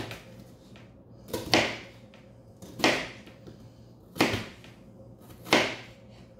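Knife cutting an onion on a plastic cutting board: five slow, evenly spaced strokes, about one every second and a half.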